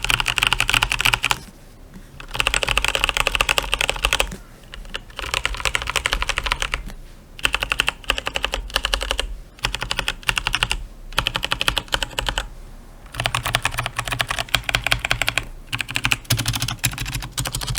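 Logitech G512 Carbon mechanical keyboard being typed on fast, in about eight bursts of rapid keystrokes separated by short pauses.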